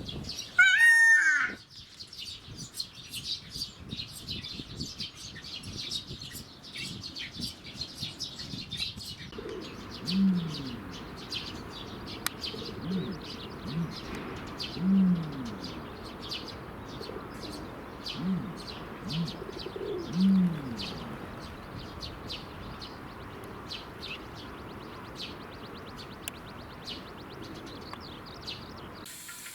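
Birds calling: many small birds chirping, and one loud gliding call about a second in. From about ten seconds in comes a series of short, low calls that fall in pitch, one every second or two.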